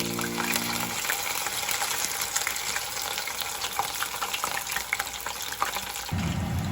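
Hot oil sizzling steadily as food fries in a pan, with many small sharp crackles and pops through the hiss.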